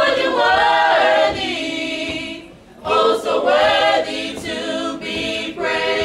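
Small mixed gospel vocal group singing a cappella in sustained, held phrases, with a short break for breath about two and a half seconds in.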